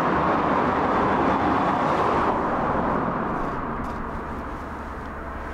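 A car driving through a road tunnel: steady tyre and engine noise that starts to fade about two seconds in as it passes.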